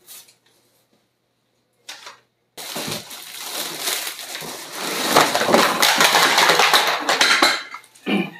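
Clear plastic wrapping crinkling and rustling, with cardboard scraping, as plastic-wrapped high-chair parts are pulled out of a cardboard box. It starts about two and a half seconds in, after a moment of near silence, and is loudest a little past the middle.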